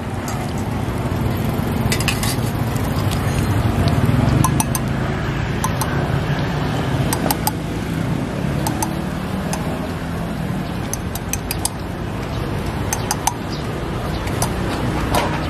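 Metal spoon clinking against stainless steel bowls and a steel cup as ingredients are scooped, many short clinks over a steady low rumble of street background noise.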